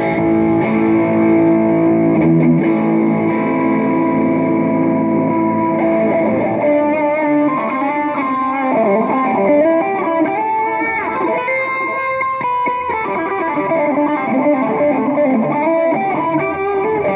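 Stratocaster-style electric guitar played through a Mooer GE200 multi-effects processor into an amp, heard through a phone mic. A chord rings out for about six seconds, then a single-note lead line with bent notes.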